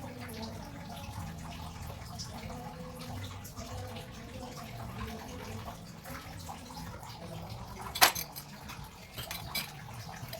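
Water running steadily, with a sharp knock about eight seconds in and a few lighter ticks after it.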